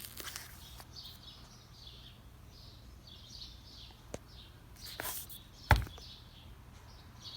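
Faint birds chirping, with a few sharp knocks, the loudest about two thirds of the way through.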